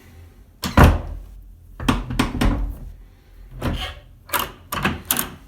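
A wooden door's newly fitted mortise passage latch being worked: a solid thunk as the door shuts about a second in, then a series of latch clicks and knocks.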